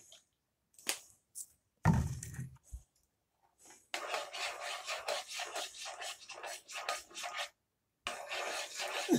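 Dry, scratchy rubbing as fingers crumble something into a saucepan, in two stretches of several seconds each. It is preceded by a few light clicks and a single dull thud about two seconds in.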